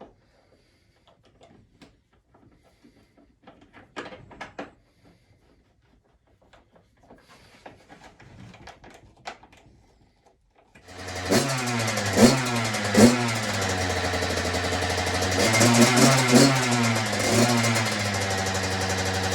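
Light scattered clicks and taps of small-parts work, then about ten seconds in a 2021 Kawasaki KX100's single-cylinder two-stroke engine comes in suddenly and runs, revved briefly a few times, through its newly fitted FMF aftermarket exhaust.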